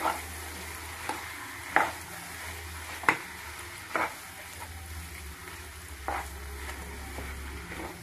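Wooden spatula mashing and stirring boiled potatoes into hot spiced oil in a nonstick frying pan, with a light sizzle and several sharp knocks of the spatula against the pan at irregular intervals.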